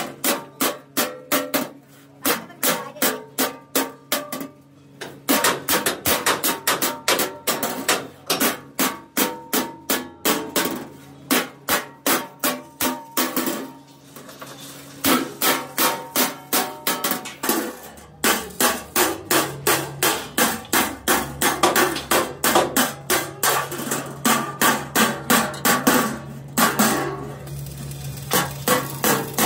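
A hammer beating on steel, about three blows a second in long runs broken by brief pauses, the metal ringing after each blow. A steady low hum starts a little over halfway through.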